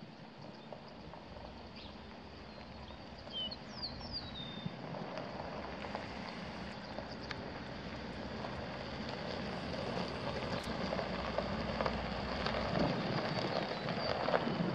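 Outdoor noise that grows gradually louder, with a bird chirping a few quick notes about four seconds in.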